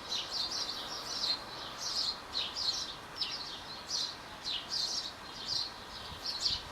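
Small birds chirping: a steady run of short, high, downward-sliding chirps, two or three a second, over a faint background hiss.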